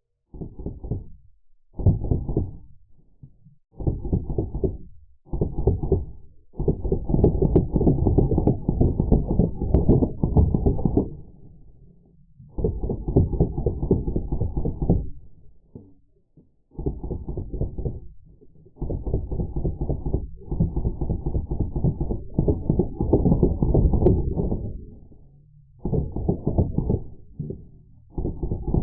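Full-auto bursts from Drozd Blackbird CO2 BB guns, with the audio slowed down so each rapid string of shots comes out as low, closely packed thuds. There are about ten bursts, from under a second to about four seconds long, with short pauses between them.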